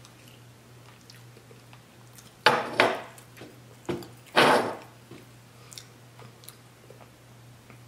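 Tableware knocking on a table: a few sharp knocks and a short clatter, loudest about halfway through, with faint handling sounds between them.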